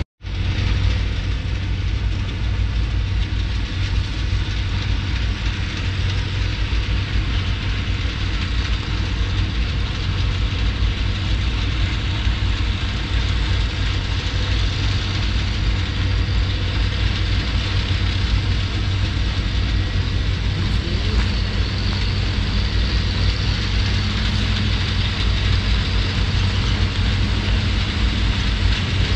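Diesel engines of a sugarcane harvester and the tractor hauling its cane trailer, running steadily under working load as the cane is cut. The sound starts after a brief gap and then holds a constant deep hum.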